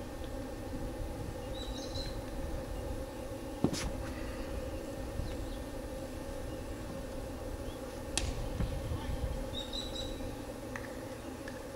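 Steady low outdoor noise, with two sharp knocks about four and eight seconds in and a few short bird chirps.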